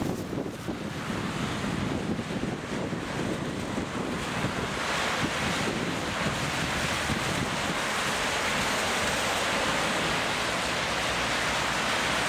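Wind buffeting the microphone over the steady hiss of car tyres on a rain-soaked street, the hiss growing louder about five seconds in.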